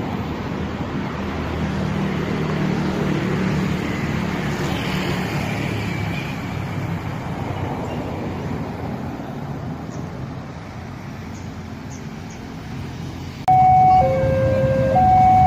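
Steady vehicle engine and traffic noise. About thirteen and a half seconds in, a much louder two-tone signal starts abruptly, switching between a higher and a lower pitch about once a second.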